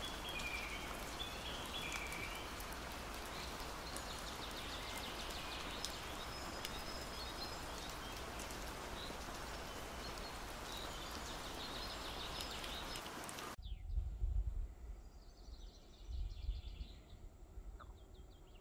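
Steady hiss of rain falling in a forest, with birds singing repeated chirping phrases over it. About thirteen seconds in, the hiss cuts off abruptly, leaving faint birdsong and a couple of low bumps on the microphone.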